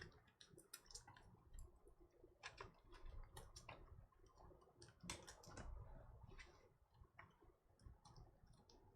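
Faint, irregular light clicks and taps, a few a second with pauses between, from small things being handled on a desk.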